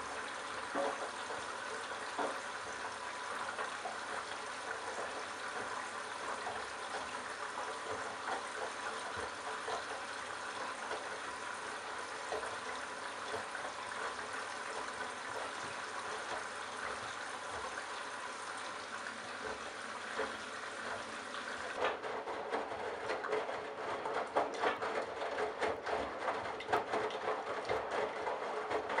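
Candy Bianca washing machine with a steady hiss of water running into the drum. About 22 seconds in the flow stops, and the drum turns with the wet towels and bathrobe sloshing and knocking inside.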